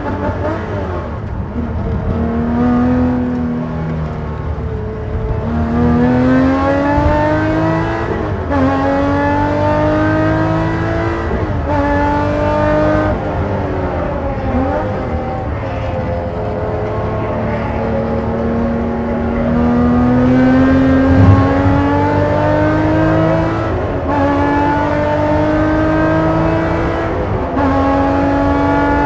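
Porsche 911 race car's flat-six engine under hard acceleration, revving up through the gears with the pitch climbing and then dropping back at each gear change, many times over, as the car brakes for corners and powers out again.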